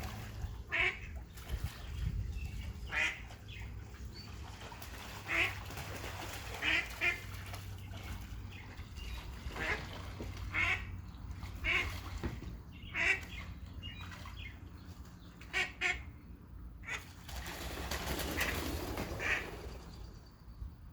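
Ducks calling: short quacks or honks, a dozen or more, spaced irregularly, over a steady low hum.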